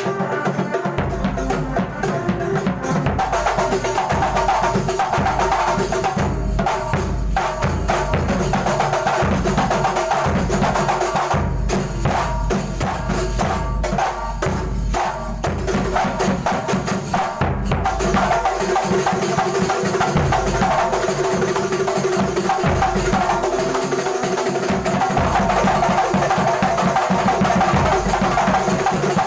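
Kuntulan music from a rehearsing ensemble: dense, continuous drumming with wood-block-like strokes and jingles over a sustained melodic line, playing steadily throughout.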